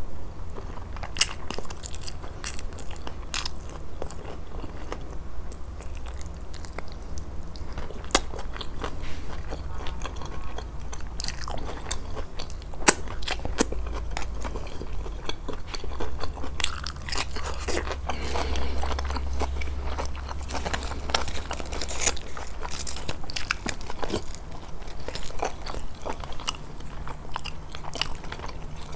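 Close-miked eating of a grilled-fish meal: steady chewing with frequent sharp, crisp crunches and small clicks, over a low steady hum.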